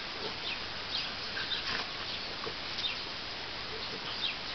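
French bulldog puppies and a larger dog play-wrestling: scattered short, high squeaks and faint grunts over a steady hiss.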